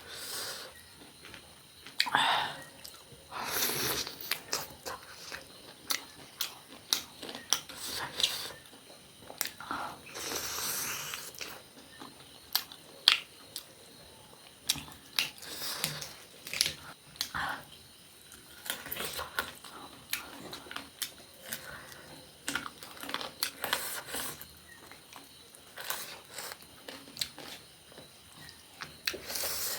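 Close-up eating sounds: irregular chewing, biting and crunching on fried chicken legs and fried beans, with scattered clicks and short smacks.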